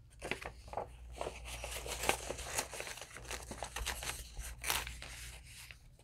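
Paper pages and tucked paper inserts of a handmade junk journal rustling and crinkling as they are handled and turned, a run of small irregular scrapes and crackles with a few louder rustles.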